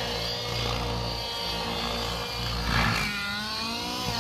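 Radio-controlled model helicopter flying aerobatics, its motor and rotor making a steady whine. About three seconds in the pitch climbs as it manoeuvres.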